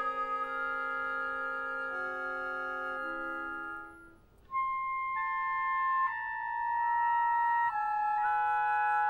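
Live chamber ensemble of woodwinds and brass playing held chords, which fade away about four seconds in; after a brief pause a new phrase of sustained notes enters, its top line moving step by step.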